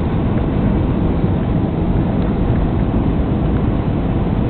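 Steady cabin noise inside an Airbus A320 descending on approach to land: an even, loud rush of engines and airflow heard through the fuselage, strongest in the low end.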